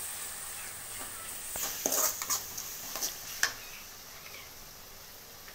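Perforated steel ladle scraping and clicking against a metal kadai as onions frying in oil are stirred, with a faint sizzle of the oil. The scrapes come in a short cluster from about one and a half to three and a half seconds in.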